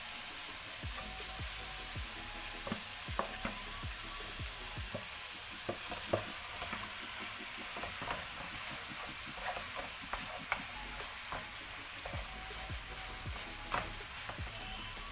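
Marinated bone-in chicken pieces sizzling as they fry in hot oil and butter in a pan, a steady hiss with scattered sharp clicks.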